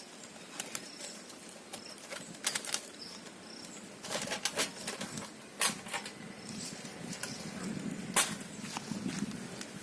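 Irregular crisp clicks, crackles and rustles of freshly deep-fried, crunchy onion pakodas being handled and shared out, sparse at first and busier from about halfway. Faint short high bird chirps sound a few times early on.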